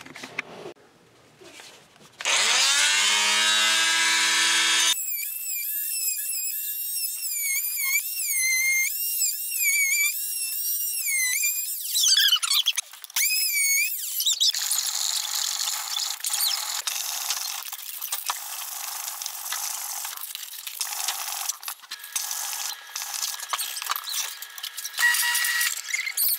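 Oscillating multi-tool cutting back the wooden edge of a kitchen cabinet. From about two seconds in there is a high whine that wavers up and down in pitch as the blade bites. The second half is a rougher, noisier cutting sound.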